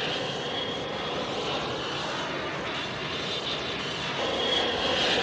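Boeing 727's three Pratt & Whitney JT8D turbofans at high power as the jet climbs away: a steady jet roar with a high whine, growing louder about four seconds in.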